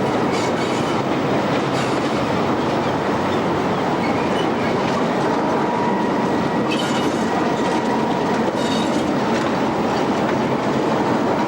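Venice Simplon Orient Express Pullman train running on the rails with a steady rumble and clickety-clack of wheels over the rail joints, touched by brief high wheel squeals a few times.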